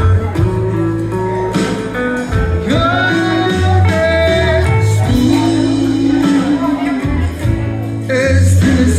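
A man singing a country song into a microphone over a recorded backing track with guitar and bass, played through a PA speaker.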